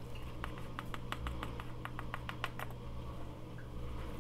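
Plastic measuring spoon clicking against a plastic baking powder tub while a teaspoon of baking powder is scooped out: about a dozen quick, light clicks over two seconds, over a low steady hum.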